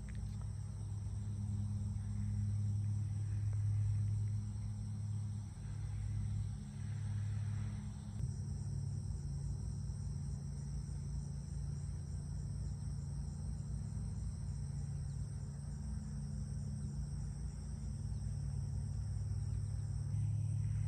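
Steady, high-pitched chorus of insects over a low, steady hum.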